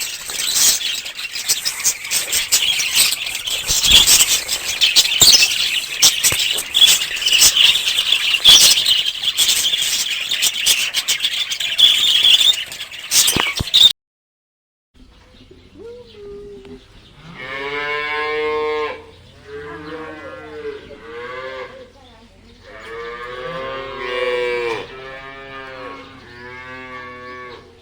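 A loud, dense high-pitched hissing chatter full of clicks for about half the time, then a cut to cattle mooing, four long moos with short pauses between them.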